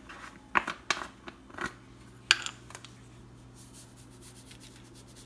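A utensil clicking and scraping in a bowl of raw chicken pieces as they are stirred, with a few sharp knocks in the first two and a half seconds, the loudest about two seconds in. After that comes a faint rapid patter of seasoning being shaken from a shaker.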